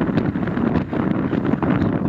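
Wind buffeting the microphone: a loud, steady low rumbling rush with no pitch to it.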